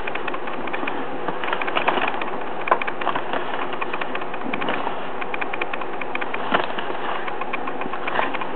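Pages of a soft-cover booklet being handled and turned: irregular light clicks and rustles over a steady background hiss.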